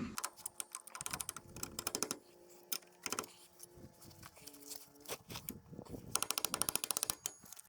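Light metallic clicks and rattling as the parts of a Fiat 640 tractor's oil-immersed disc brake are handled and the brake's actuator plate is fitted. A fast, even run of clicks comes near the end.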